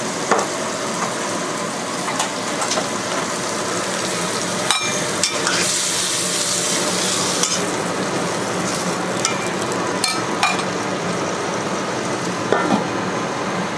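Pork and potato chunks sizzling in a frying pan as they are stir-fried, with a spatula scraping and clicking against the pan now and then. The sizzle grows stronger for a couple of seconds about halfway through.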